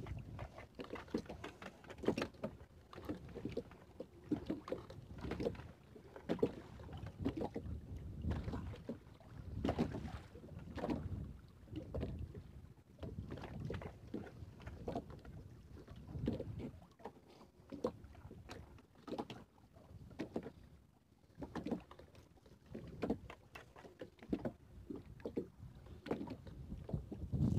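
Water slapping and splashing against a small boat's hull in uneven bursts, with scattered knocks, as a fishing net is hauled in by hand.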